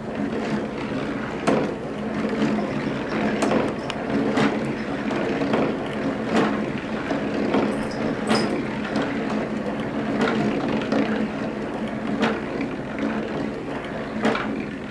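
Marbles rolling along the poster-board track of a balsa-wood marble roller coaster, a continuous rolling rumble through the wooden frame, with sharp clicks recurring about every two seconds as the marbles knock against the track and lift mechanism.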